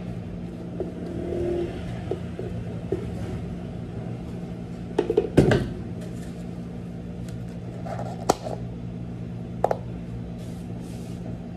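Steady low hum of cafe kitchen equipment, with the knocks and clicks of a plastic smoothie cup and a blender pitcher being handled on a stainless-steel counter. The loudest knocks come in a quick cluster about five seconds in, and single sharp clicks follow near eight and ten seconds.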